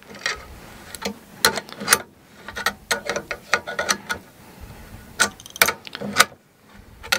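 Adjustable wrench clicking and clinking against a nut and washer on a steel threaded rod as the nut is tightened: irregular sharp metallic ticks, about two a second, with a short pause near the end.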